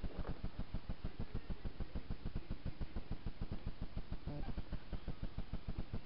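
Persian cat purring steadily with an even, rapid pulse while it is stroked.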